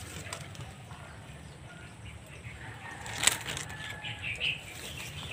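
Dry leaves, twigs and stems rustling as someone pushes through undergrowth, with a sharp crack about three seconds in.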